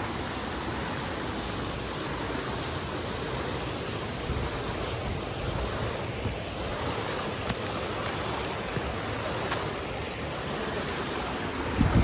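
Steady rush of water from a small rocky stream cascading over rock ledges, with a few faint ticks over it.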